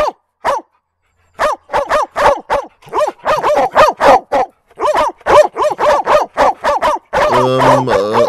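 Many small dogs yapping and barking. Two yaps come at the start, then after a short gap the barks pile up quickly and overlap, with a longer, lower call near the end.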